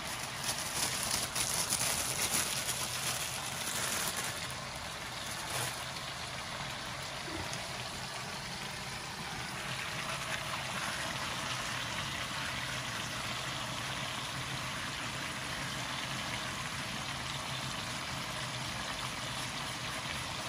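Plov base (zirvak) cooking in the pot: a steady, watery bubbling hiss, a little louder during the first few seconds.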